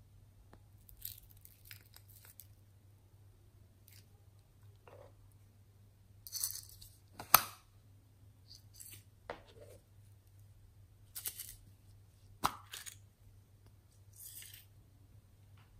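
Hands handling small plastic containers and slime toppings: scattered clicks, taps and rustles, with a sharp click about seven seconds in and another about twelve seconds in, over a faint steady hum.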